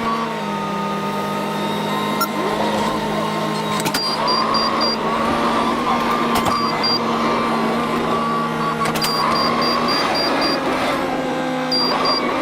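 Farm tractor engine running steadily, its speed dipping slightly at the start and picking up again near the end. A few sharp knocks are heard over it.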